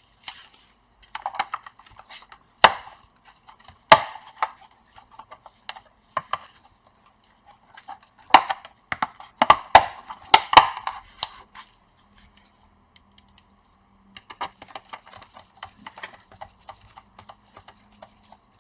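Sharp clicks, taps and clatter of hard plastic and small metal parts being handled during laptop reassembly, with single loud knocks about three and four seconds in and a burst of clicks from about eight to eleven seconds.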